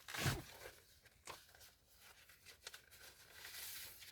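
Faint rustling and crinkling of paper sheets being handled, with a knock just after the start and a few light clicks.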